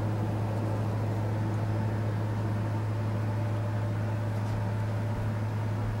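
A steady low hum with an even hiss behind it, holding the same pitch and level throughout.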